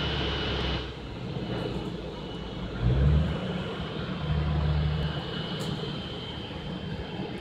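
Jet engines of a Boeing 777-200ER taxiing in at idle, heard from a distance: a steady high whine over a low rumble. The rumble swells louder about three seconds in and again between four and five seconds.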